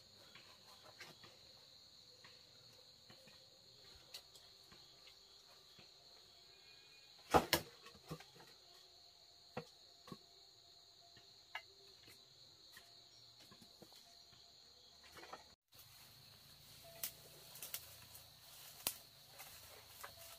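Insects calling steadily in a high, even drone, with scattered light knocks and taps, the loudest a double knock about halfway through. The background breaks off for an instant a little after halfway, then carries on.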